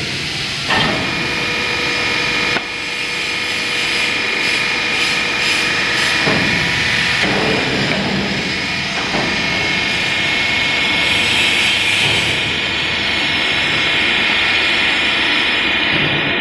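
Hydraulic power unit of a rubber vulcanizing press running, a steady loud hum and hiss with a few thin whining tones, as the press platens move. A couple of sharp knocks come in the first few seconds.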